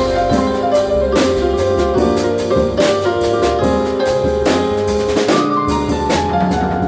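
Live jazz played by a piano trio: piano chords and melody over a steady bass line, with a drum kit keeping time on cymbals and drums.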